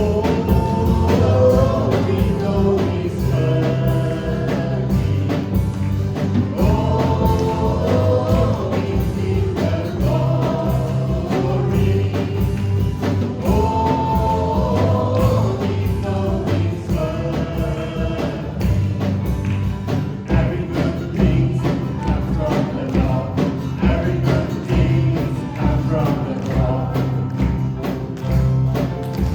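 Gospel worship music: a band with drums and bass, and singers in several voices singing a melody together.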